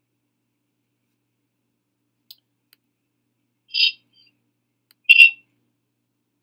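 Two short high-pitched chirps about a second and a half apart, the second the louder, with a couple of faint clicks before them.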